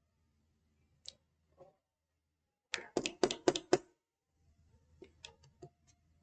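A quick run of knocks on a tabletop, about six in a second, followed by a few lighter taps, as a hand rolls a small ball of plasticine back and forth under the palm to stretch it into a cylinder.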